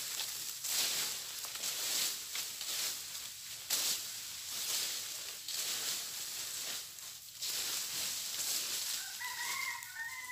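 Dry leaves rustling and crackling in repeated swells as brush is worked and burned. A chicken calls briefly near the end.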